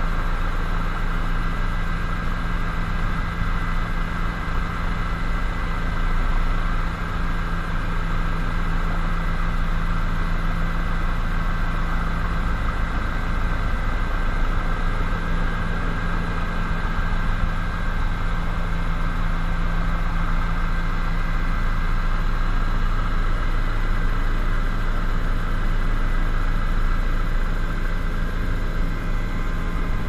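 Helicopter engine and rotor heard from inside the cabin: a steady, unbroken drone with a constant higher whine above it.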